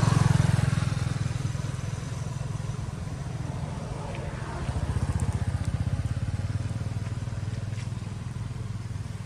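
An engine running steadily with a low, fast pulse, louder at the start and swelling again about five seconds in.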